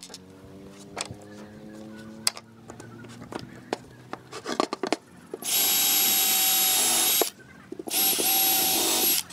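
Cordless drill boring into a pine board, running in two steady bursts in the second half, the first about two seconds long and the second a little shorter. Before it come a few clicks and knocks as spring clamps are set on the boards.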